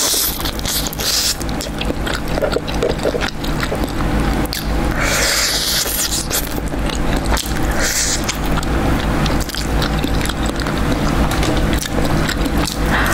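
Close-miked mouth sounds of eating sauced spicy fried chicken: biting and chewing with wet smacking and clicks, and a few louder bites or smacks. A steady low hum runs underneath.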